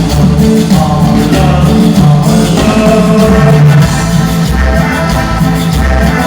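Latin band playing live through a PA during a sound check: loud music with a steady bass beat and sustained melodic lines.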